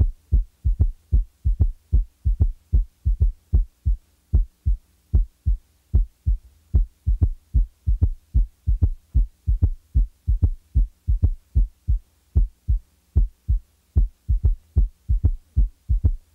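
Heart sounds with a third heart sound (S3, a ventricular gallop): low-pitched thuds in a steady repeating rhythm, each cycle of first and second sounds followed by an extra low sound in early diastole. In some cycles the third sound is left out, so the beats alternate between two and three sounds.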